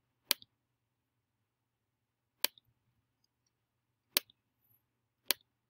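Four single computer mouse button clicks, short and sharp, spaced irregularly a second or two apart, made while selecting items in an on-screen menu. A faint low hum runs underneath.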